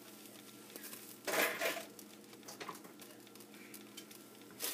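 Cookware clattering once, about a second and a half in, over the faint steady sizzle of food simmering in a pot, with a few light clinks later.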